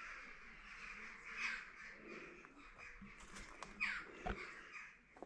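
Crows cawing repeatedly, fairly faint, with a single dull knock about four seconds in.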